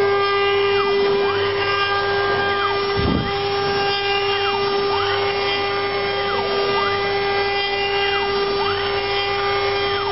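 CNC router spindle running at a steady high-pitched whine while its bit carves a wooden cylinder turned on the rotary 4th axis. Fainter motor tones rise and fall every second or two as the axes move, with a brief low rumble about three seconds in.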